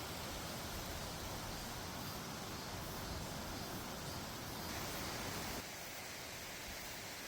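Steady wind noise on the microphone: a low rumble under an even hiss. About five and a half seconds in, the low rumble drops away abruptly, leaving a fainter, steady hiss.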